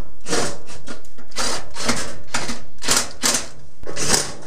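Cordless drill/driver with a hex bit driving screws into a range's sheet-metal back panel, running in short bursts about two a second.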